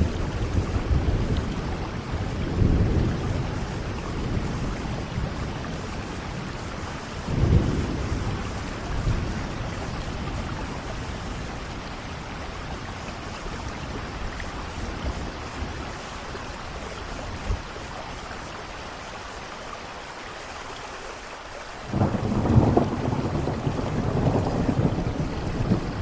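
Steady rain with rolling thunder: low rumbles swell near the start and about seven seconds in, die down to a quieter stretch of plain rain, then a loud peal of thunder breaks in suddenly about 22 seconds in and keeps rumbling.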